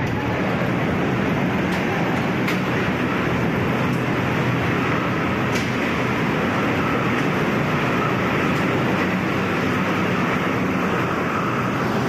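Steady running noise of a vehicle, even throughout, with a faint hum and a few light ticks.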